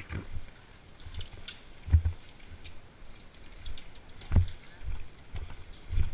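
Irregular low thuds and rustling close to the microphone, roughly one every half second to a second: the footsteps and gear movement of a player on the move.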